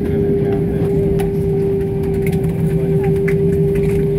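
Airbus A320-family jet heard from inside the cabin while taxiing: the engines at idle make a steady hum with two held tones, one mid-pitched and one low, over a rumble.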